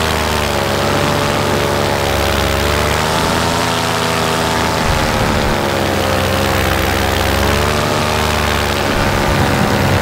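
Paramotor's Vittorazi Moster 185 two-stroke engine and propeller running steadily in flight, its pitch drifting gently up and down, over a steady rush of air.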